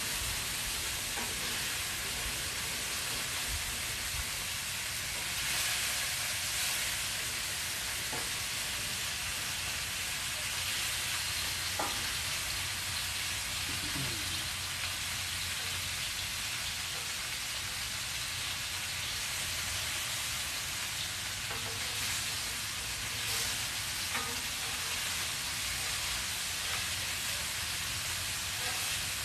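Food frying on a small portable flat-top griddle: a steady, even sizzle with a few faint clicks.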